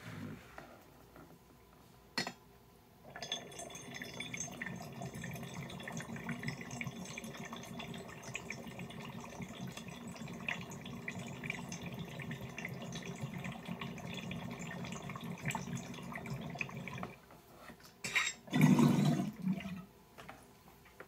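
Water bubbling through the tree percolator of a glass water pipe as vapor is drawn through it: a steady gurgle for about fourteen seconds. Near the end there is a short, louder rush of bubbling.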